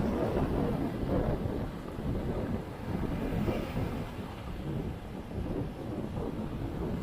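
Baltic Sea surf washing onto a sandy beach: a low, steady wash of waves, a little louder in the first couple of seconds, mixed with wind buffeting the microphone.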